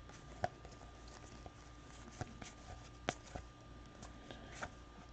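A few short, sharp clicks and light taps, five or six, scattered irregularly over a faint steady hum of room noise.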